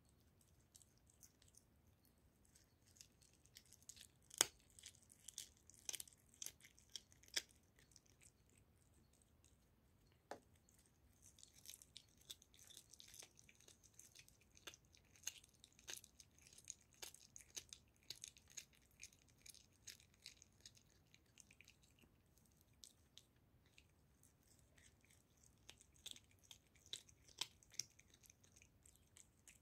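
A young tabby cat chewing and tearing at raw goose neck close to the microphone: crisp, irregular crunches and wet clicks, the loudest crunch about four seconds in, with a dense run of quick chewing from about eleven to twenty seconds and again near the end.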